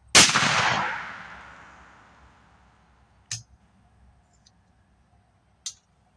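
A single-barrel shotgun fires a 12-gauge squirrel-shot load: one loud shot whose echo fades away over about two seconds. Two sharp metallic clicks follow, about three and five and a half seconds in, as the gun is handled to open it and take out the spent shell.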